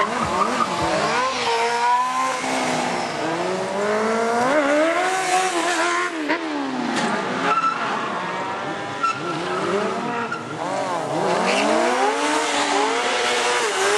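Sportbike engine revving up and falling back again and again during stunt riding, with the rear tyre squealing and skidding on the asphalt.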